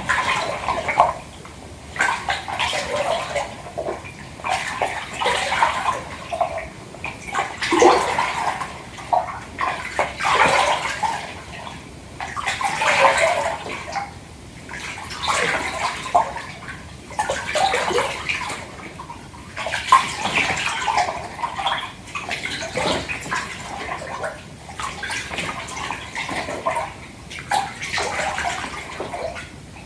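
Bath water sloshing and splashing in a filled tub, in uneven surges every second or two.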